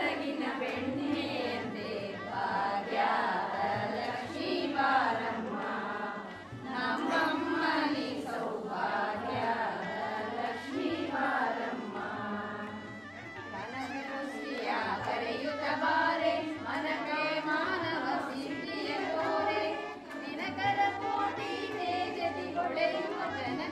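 A group of voices singing a devotional chant or bhajan together, a continuous sung melody with short breaths between phrases.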